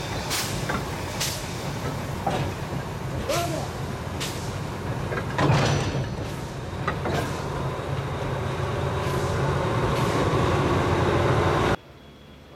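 Small diesel shunting locomotive's engine running as it rolls closer along the track, a steady low throb that grows gradually louder, with sharp knocks and a few short squeaks. It cuts off suddenly near the end.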